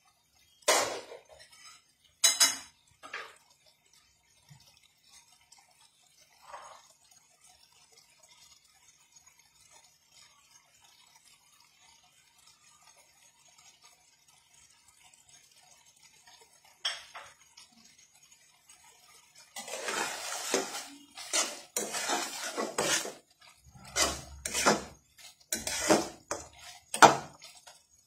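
A spatula clinking and scraping against a metal cooking pan: a few sharp knocks in the first few seconds, then a long run of stirring and scraping strokes in the last third.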